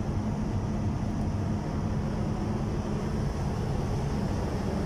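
Perkins 2500 Series diesel engine of a 550 kVA generator set running steadily, a constant low hum.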